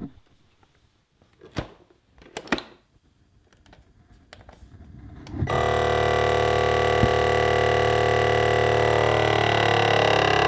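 A few light knocks, then about five seconds in a FoodSaver vacuum sealer's pump starts and runs with a steady hum, drawing the air out of the bag, with one sharp click partway through.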